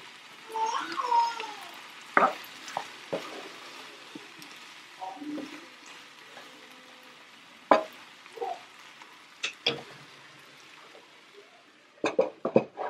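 Sausage and potatoes sizzling in a nonstick frying pan, stirred with a wooden spatula that scrapes and knocks against the pan several times. Near the end, a quick clatter of knocks as a glass lid goes onto the pan.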